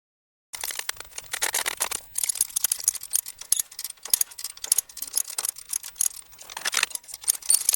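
Rapid, irregular mechanical clicking, starting about half a second in, as a hand ratchet is worked to pull a car up onto a car dolly.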